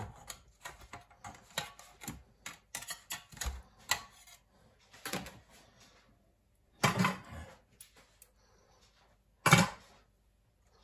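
A metal knife scraping and clicking around egg rings in a metal tin, working loose fried eggs that have stuck. Quick small clicks and scrapes at first, then three louder clinks of utensils in the second half.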